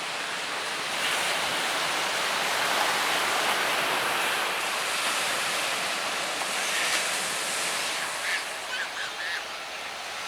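Surf breaking on the beach: a steady rush of water that swells about a second in and eases off near the end. A few brief faint high sounds come near the end.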